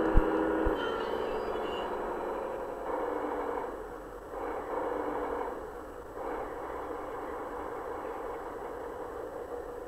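LGB garden-railway locomotive heard from on board: the motor's whine fades out as the train comes to a stop about a second in, with a sharp click just at the start. A steady mechanical hum carries on while it stands, with slow swells.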